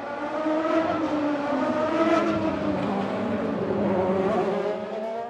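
Race car engines running on a circuit, one steady engine note whose pitch wavers up and down with the revs.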